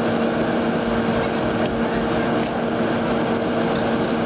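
Engine running steadily with a constant hum, such as the power unit that drives the Hurst hydraulic rescue tools.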